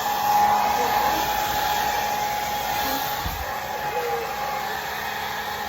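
Conair mid-size blow dryer running steadily on a wig, a constant rush of air with a steady whine.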